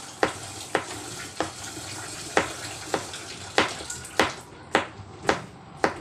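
Kitchen knife slicing garlic cloves and tapping the cutting board, about ten sharp clicks at roughly two a second, over a steady hiss.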